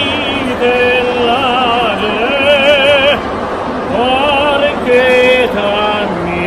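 A gondolier singing in an operatic style: one man's voice holding long notes with a wide vibrato, pausing for breath about three seconds in and again near the end.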